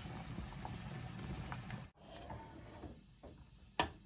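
Curry being ladled from a steel pot into a ceramic bowl: soft scrapes, then one sharp clink of the ladle against the bowl near the end. Before that, a steady hiss with a low hum for about two seconds, cut off abruptly.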